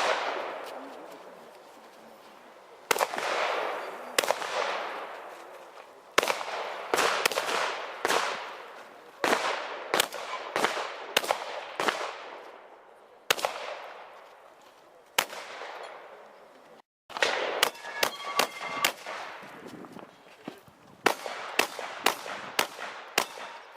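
Shotgun fired again and again, one shot every half second to second and a half at an uneven pace, each report followed by a long echoing tail. After a short break, a faster string of shots comes near the end.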